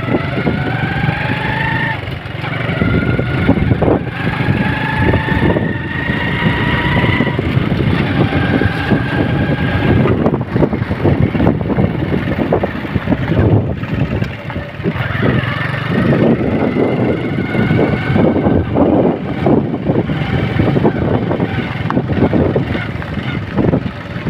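Vehicle engine running under way and revving, its pitch rising over a second or two, levelling off and rising again as it picks up speed, twice in succession, with a rough rattle throughout.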